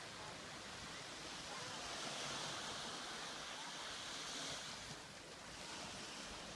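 Surf breaking and washing onto a beach: a rushing hiss swells about a second and a half in and eases off after about five seconds.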